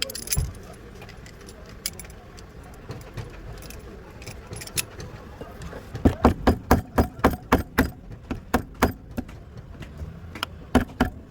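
Repeated sharp metallic knocks, about four a second for some three seconds, then a few more near the end, with scattered single clicks before them: a part being knocked into the wheel hub during a wheel bearing service, and it is not seating.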